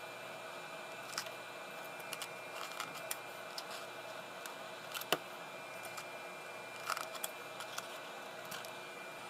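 Scissors snipping short pieces of copper desoldering braid: a series of sharp, separate clicks, the loudest about five seconds in.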